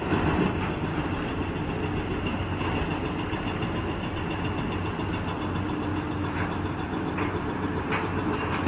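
Construction machinery engines running steadily at a concrete pour, such as a concrete pump and transit mixers, with a few faint knocks near the end.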